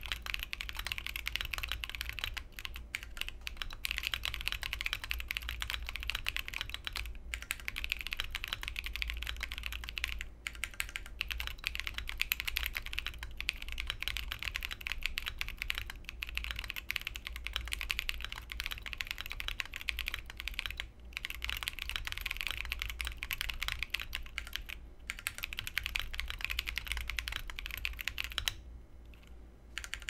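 Fast continuous typing on a Keychron Q1 Pro Wireless mechanical keyboard with KSA double-shot PBT keycaps: a dense run of keystroke clacks with a few short pauses, the longest about a second long near the end.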